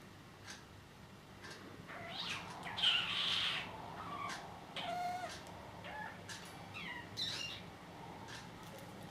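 Budgerigar giving a run of odd chirps, squeaks and pitch-gliding whistles, with a harsh scratchy call about three seconds in as the loudest; before it, faint ticks about once a second.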